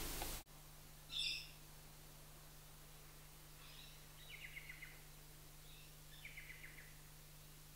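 Birds calling: one high call about a second in, then two short rapid trills near four and six seconds in, over a faint steady low hum.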